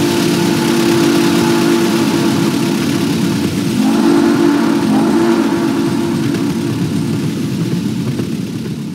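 Steam locomotive chime whistle blowing long, several tones sounding together, over the rumble and hiss of a moving train. The whistle dips and sounds again about four seconds in, and the sound fades out near the end.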